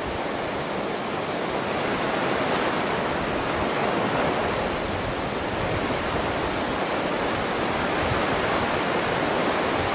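Low surf breaking on a sandy beach, heard as a steady wash of waves.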